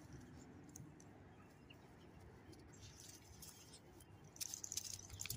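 Near silence: room tone, with faint rustling and light clicks starting about three seconds in and a little louder near the end.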